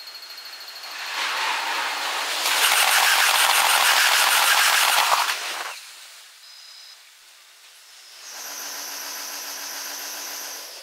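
Train passing close by, heard at six times normal speed: a loud rush of wheel and rail noise with a very fast rattle for about four seconds, which then dies away. A steady high whine is heard at the start and again near the end.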